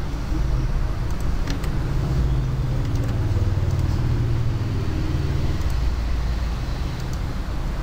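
Steady low rumble of background noise, a little stronger in the middle, with a few faint clicks.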